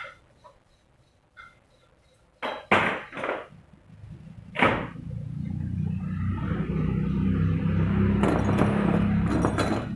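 A few sharp knocks, then a steady low engine hum that builds over several seconds. Near the end there is light metallic jingling as the steel washers on a stainless-steel lezim's chain are handled.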